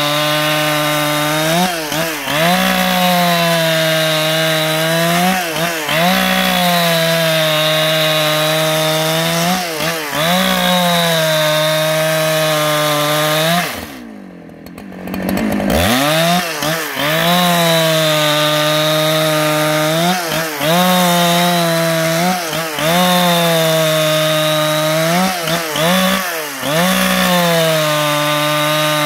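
Husqvarna 395XP two-stroke chainsaw running at full throttle while ripping a log lengthwise into a plank, its engine pitch sagging under load and recovering every couple of seconds. About halfway through the throttle is briefly let off, then the engine revs back up and keeps cutting.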